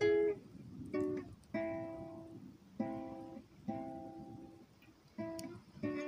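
Acoustic guitar played unaccompanied: chords plucked one at a time, about seven in all, each left to ring and fade before the next.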